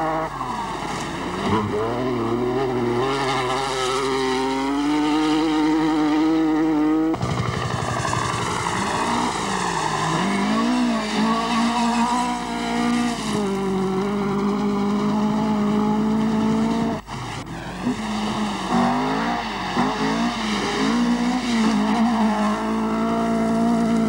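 Rally car engines at full throttle on a gravel stage: a Lancia Stratos's V6, then a Fiat 131 Abarth's four-cylinder, revving up and dropping with each gear change and lift. The sound breaks off abruptly twice, about seven and seventeen seconds in, as one car gives way to the next.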